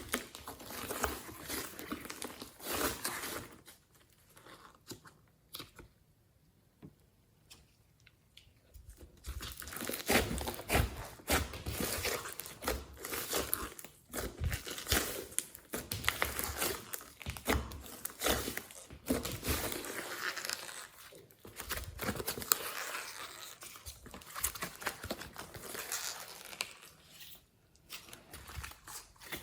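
Hands squishing, stretching and folding slime, making dense, irregular sticky crackles and clicks as air pockets pop, with a quieter pause from about four to nine seconds in.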